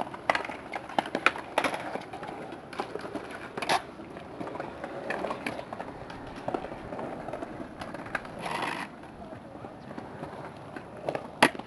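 Skateboard wheels rolling on concrete, with scattered sharp clacks of boards, the loudest near the end.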